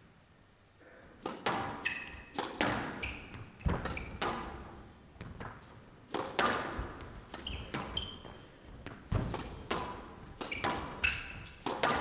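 A squash rally: the ball is struck by rackets and slaps off the court walls in a quick, irregular series of sharp thuds, starting about a second in, with short high squeaks between the hits.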